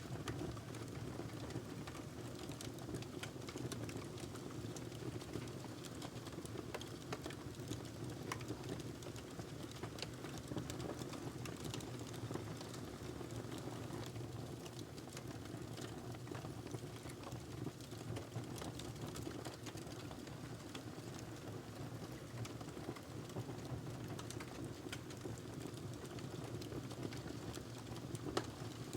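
Wood fire in a fireplace crackling, with irregular small pops and snaps over a steady low rush of burning.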